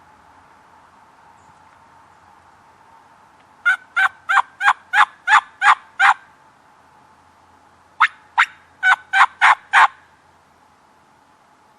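Turkey yelping: two series of sharp, evenly spaced yelps, about three a second, the first of about eight notes and the second, after a short pause, of about seven.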